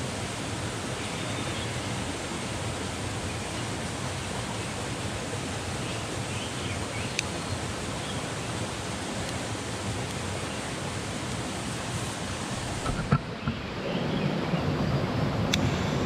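Heavy rain falling steadily, an even hiss. About thirteen seconds in there is a knock, after which the sound turns lower and fuller, with a couple of sharp ticks.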